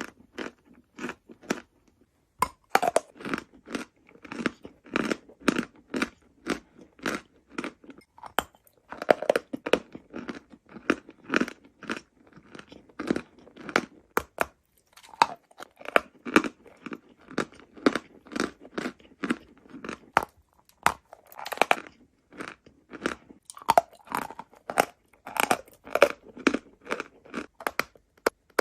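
Close-miked chewing of dry chalk: crisp crunching chews, about two or three a second, in runs of several seconds with short pauses between.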